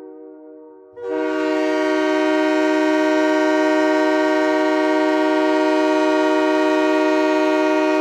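The Utah Grizzlies' 2018–present goal horn, an air horn sounding a steady multi-note chord. A quieter horn tone gives way about a second in to the full, loud blast, which holds steady.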